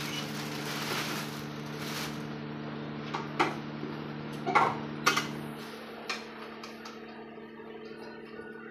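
A few sharp metal clicks and knocks from a hand tool working on parts inside an opened clothes dryer cabinet, over a steady low hum. The lowest tone of the hum stops a little over halfway through.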